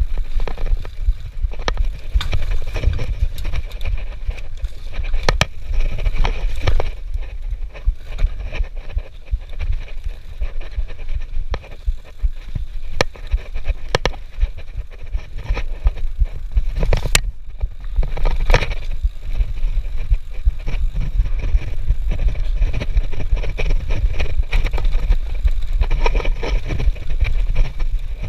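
Mountain bike riding a dirt singletrack: tyres rolling over dirt and the bike rattling and clicking over bumps, over a steady low rumble. One sharp click stands out about two-thirds of the way through.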